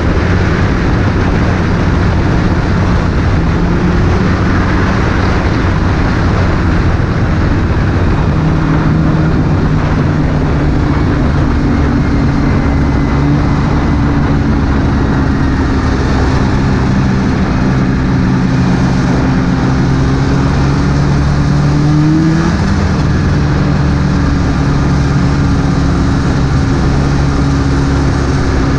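Snowmobile engine running steadily at trail speed, with track and wind noise. The engine pitch shifts as the throttle changes, rising briefly about two-thirds of the way through, then settling back.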